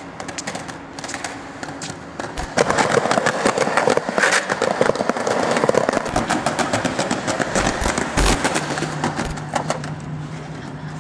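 Skateboard wheels rolling over paving tiles, with a rough noise and rapid clicking as they cross the joints. It gets louder about two seconds in and eases off near the end.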